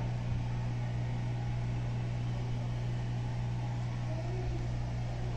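A steady low mechanical hum with a faint hiss underneath, unchanging throughout.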